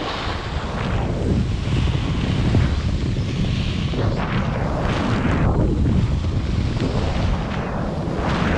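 Wind buffeting an action camera's microphone during a fast ski descent, with the skis' edges scraping over groomed snow. The scraping hiss swells and fades with each carved turn.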